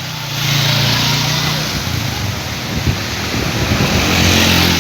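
Storm wind blowing hard, a loud rushing noise that swells about half a second in and again near the end, with a low steady hum underneath.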